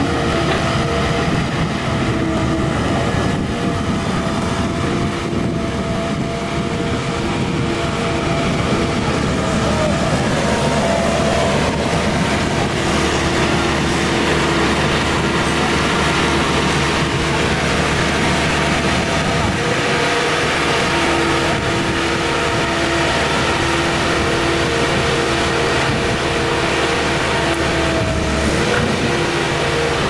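Engine of a Starke amphibious backhoe dredger running as the machine drives on its steel crawler tracks, a steady mechanical din with the clatter of the tracks. The engine note shifts partway through as it manoeuvres.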